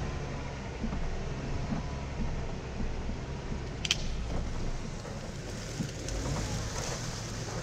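Jeep Wrangler JK's 3.6-litre V6 running steadily at low speed as the Jeep crawls along a dirt trail. A short sharp click comes about four seconds in.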